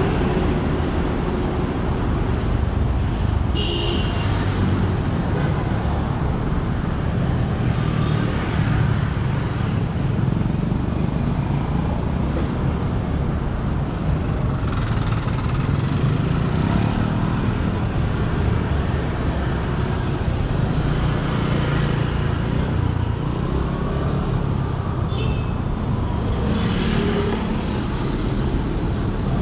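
Steady street traffic: a continuous rumble of passing motor vehicles, with a couple of brief high tones.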